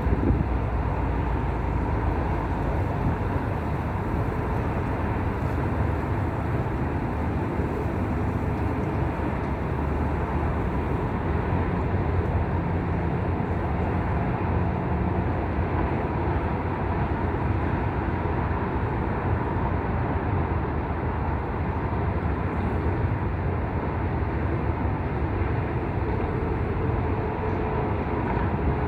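Wind blowing on the microphone: a steady low rush with no break.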